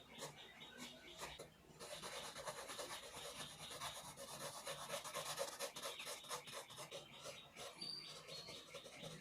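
Pencil scratching and rubbing on sketch paper in quick, even back-and-forth shading strokes, with a brief pause about a second and a half in.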